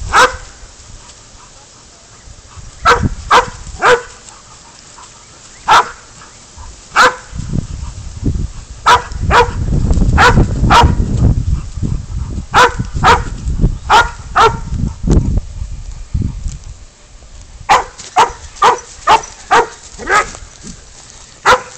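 Pig-hunting dog baying a goat: sharp barks in quick runs of two to five, repeated all through. There is a stretch of low rumbling noise through the middle.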